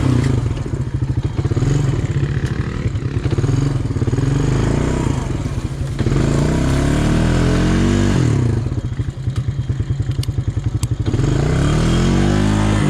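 ATV engine running hard on a trail, revving up and easing off. The pitch climbs and drops back about six seconds in and again near the end.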